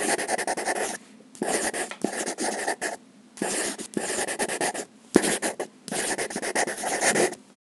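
Marker pen scribbling across a drawing surface in bursts of quick scratchy strokes, each burst about a second long with short pauses between. It stops just before the end.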